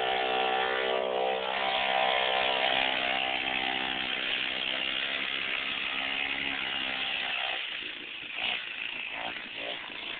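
Mini bike's small single-cylinder engine running at a steady speed over a hiss of wind and grass. The engine sound dies away about seven and a half seconds in.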